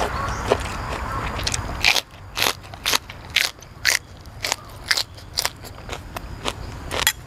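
Crisp crunching of a raw green vegetable being bitten and chewed close to the microphone, sharp crunches coming about two a second from about two seconds in.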